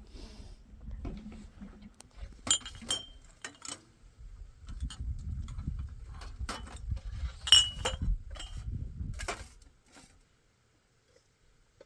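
A series of knocks and clicks with a few short, ringing metallic clinks, over a low rumble, as of tools or objects being handled; the rumble and knocks stop about ten seconds in.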